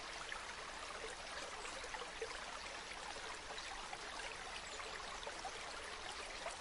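Faint, steady sound of running water, like a trickling stream, with a light crackle.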